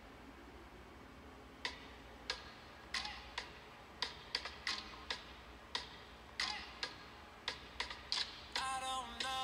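A string of sharp, irregularly spaced clicks, about one or two a second, over a quiet background. Music with a voice comes in near the end.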